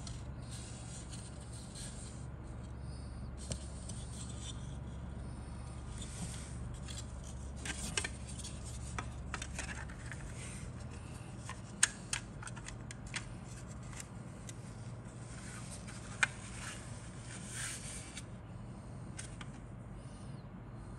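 Plastic model kit fuselage parts handled in the fingers: rubbing and scraping against skin and each other, with a few sharp clicks, the loudest about twelve and sixteen seconds in. A steady low hum runs underneath and fades about halfway through.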